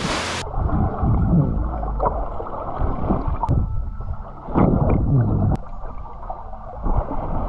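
A splash into the water, then muffled underwater sound once the microphone goes under, about half a second in: water sloshing and bubbling around a swimmer, with the higher sounds cut off.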